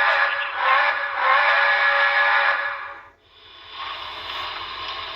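Sound decoder of an HO-scale steam locomotive playing a multi-tone steam whistle through its small onboard speaker. The whistle stops about three seconds in and gives way to a quieter hiss of steam.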